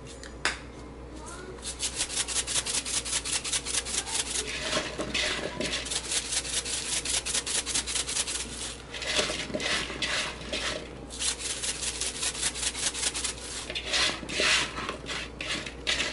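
A shaker bottle of everything bagel seasoning being shaken over cut potatoes in a bowl: the seeds and grains rattle in rapid, even strokes, several quick shakes a second, in repeated bouts.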